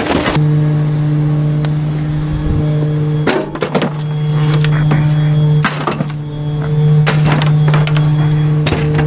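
Rear-loader garbage truck engine running steadily at a held, raised speed, with a few scattered knocks and clunks of wooden furniture being handled by the hopper.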